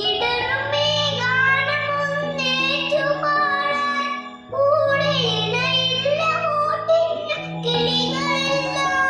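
A child singing a slow Malayalam song over an instrumental backing track with sustained low notes.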